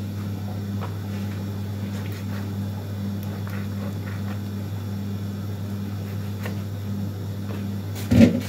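Steady low electrical hum from a kitchen appliance, with faint taps of a knife cutting raw meat on a wooden cutting board. A brief louder knock and rustle near the end.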